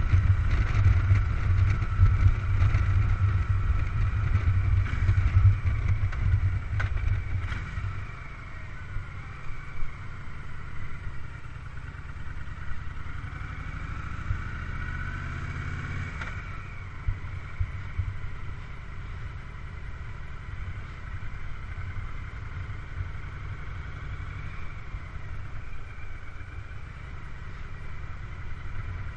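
Motorcycle engine running as it is ridden, with a deep rumble that eases off about eight seconds in. Later its note rises for a few seconds as it accelerates, then drops back about halfway through.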